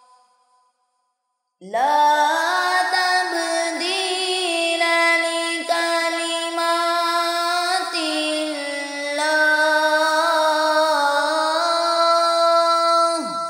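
Quranic recitation (tilawat) in a slow, melismatic tajweed style. After about a second and a half of silence, a single voice carries one long, ornamented phrase on a single breath, likely 'la tabdila li-kalimatillah', and ends in a falling glide near the end.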